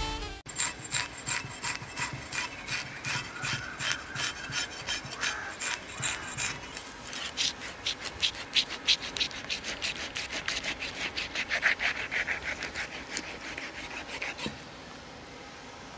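Large knife sawing through a big trevally behind the head on a wooden chopping block: rapid back-and-forth rasping strokes, about four or five a second, stopping about a second and a half before the end.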